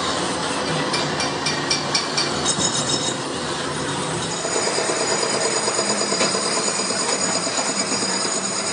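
Metal lathe turning a tractor differential case, a steady mechanical rumble. A run of rapid ticks comes in the first few seconds, and a high steady whine sets in about halfway through.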